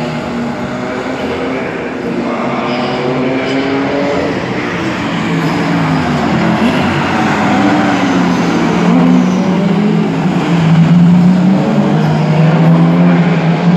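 Race car engines at high revs, several at once, their pitch rising and falling with gear changes as cars go by, growing a little louder near the end.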